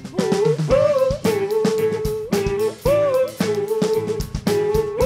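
Live rock band playing: drum kit keeping a steady beat under electric guitars and bass, with a lead melody of long held notes that slide into pitch.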